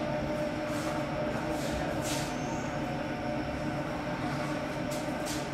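Steady machine hum and rumble, with a few short hisses about a second in, near two seconds, and twice near the end.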